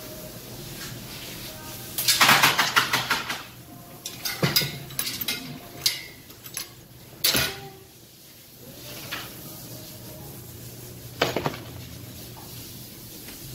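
Metal pen gate and its latch clanking and rattling as they are handled: a long rattle about two seconds in, then scattered sharp clanks, the last near the end.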